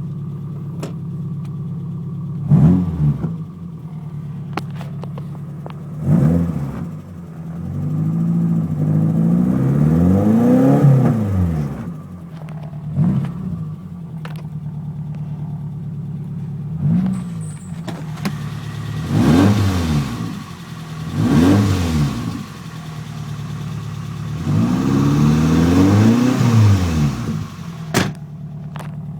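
Nissan KA24E 2.4-litre inline-four idling steadily, blipped up and down about six times and revved and held twice for a few seconds. The owner asks whether the engine's noise is hydraulic lifter noise.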